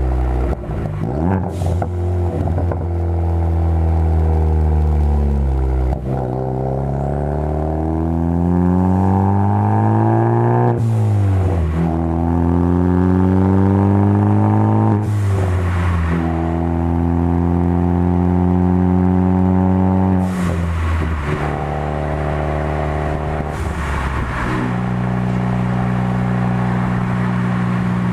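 2013 Ford Focus ST's turbocharged 2.0-litre four-cylinder with a Roush cat-back exhaust, pulling through the gears. The engine note climbs in pitch and drops sharply at each shift, with short exhaust crackles at the shifts.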